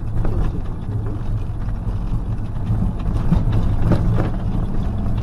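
Motorhome engine running and road noise heard from inside the cab while driving slowly: a steady low drone with a few light knocks.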